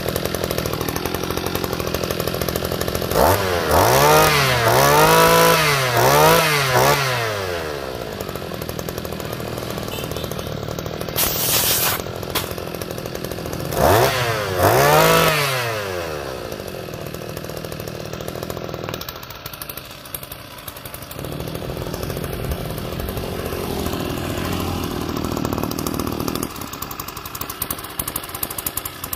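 Small two-stroke grass-trimmer engine, freshly rebuilt with a new piston and rings, running and blipped to high revs: three quick revs a few seconds in and two more about halfway through, each rising and falling in pitch, settling back to a steady idle in between.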